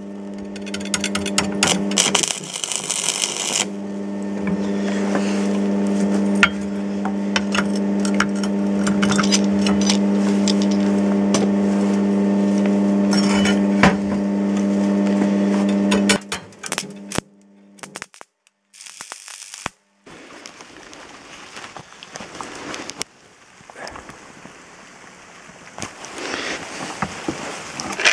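Stick arc welding on steel: the arc crackles and sizzles over a steady hum from the welding machine, then stops about 16 seconds in. After that come only quieter, scattered handling noises with short near-silent gaps.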